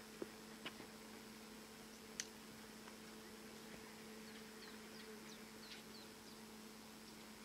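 Near silence: a faint steady hum, a few soft clicks in the first couple of seconds, and a handful of faint, high, short falling bird chirps in the second half.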